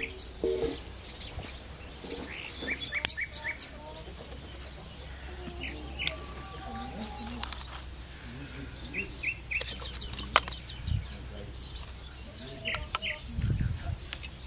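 Rural outdoor ambience: a steady high-pitched insect trill with small groups of short bird chirps, and a few sharp clicks.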